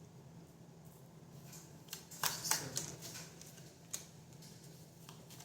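Tarot cards being handled and shuffled: a quick cluster of soft slaps and rustles about two seconds in, and a single sharp click near four seconds, over a steady low hum.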